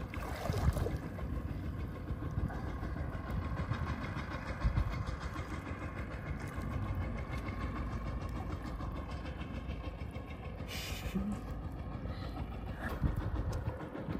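Wind buffeting the microphone in a low, uneven rumble, with water splashing around swimmers and a brief louder splash about eleven seconds in.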